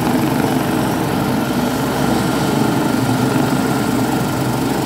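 Airbus H175 helicopter on the ground with its twin turboshaft engines running and main and tail rotors turning: a loud, steady turbine and rotor sound.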